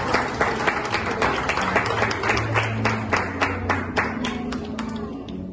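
Audience clapping: many irregular hand claps that thin out and fade toward the end.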